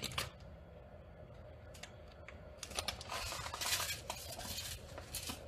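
Dry oats poured from a container onto a ceramic plate: a light, crackly hiss of flakes landing, starting about two and a half seconds in and lasting about two seconds, with a few faint clicks before it.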